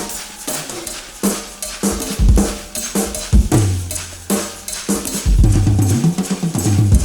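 Music with a drum beat and a bass line.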